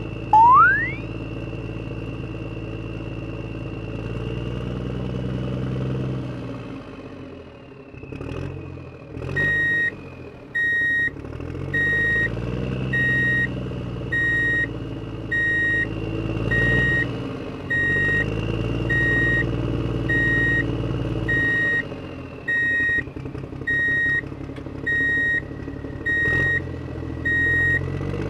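Engine sound of a radio-controlled model construction vehicle: a diesel-like drone that rises and falls as it works, with a quick rising whistle just after the start. From about a third of the way in, a reversing beeper sounds about once a second.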